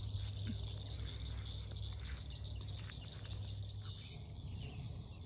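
Steady insect chorus, a continuous high trill, with a few short bird chirps over it and a steady low rumble underneath.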